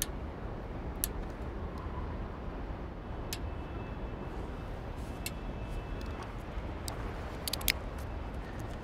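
Sparse small clicks and taps from handling the telescope's finder bracket while its screws are snugged up, with a quick cluster of clicks near the end, over a steady low background rumble.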